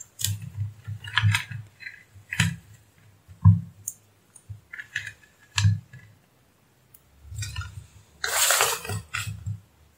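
Clicks and knocks of a small mains transformer and its wire leads being handled and set down on a workbench, with a longer rustle shortly before the end.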